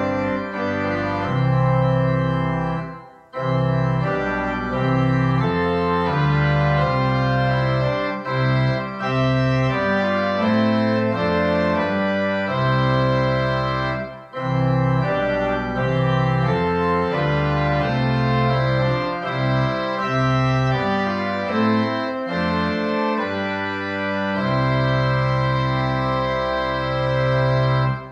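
Organ playing slow, sustained chords that change every second or so, with two short breaks between phrases, about three seconds in and again around fourteen seconds in; it ends right at the close.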